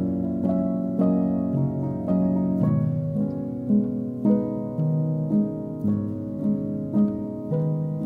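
Gentle instrumental background music: sustained chords with a steady pulse of plucked, harp-like notes.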